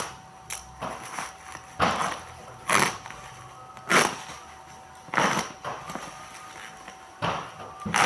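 Rustling and crinkling of packaging being rummaged through by hand, in sharp bursts about once a second, over a faint steady hum.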